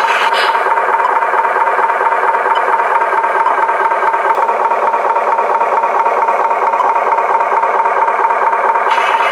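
Battery-powered toy truck's small electric motor and plastic gears running steadily with a rattle and a constant whine.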